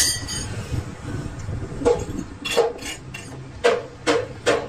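Hammer blows on steel in a machine shop: a sharp metallic clank that rings at the start, then a run of six knocks, the last three about 0.4 s apart.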